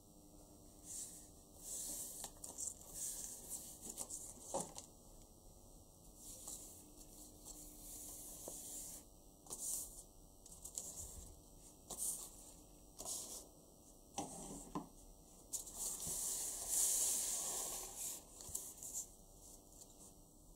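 Folded paper flowers rustling and sliding over a wooden tabletop as hands gather them, in irregular scratchy bursts. The longest rustle comes about three-quarters of the way through.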